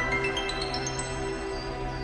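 Background music: a run of rising bell-like notes in the first second over held low tones.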